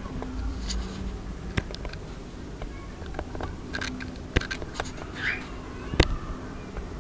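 Scattered light clicks, taps and scrapes, with one short chirp from a pearl cockatiel about five seconds in.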